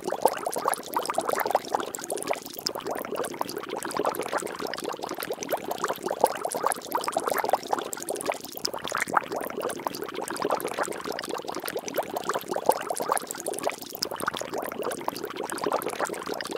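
Water bubbling and splashing steadily, a dense run of many small pops and drips.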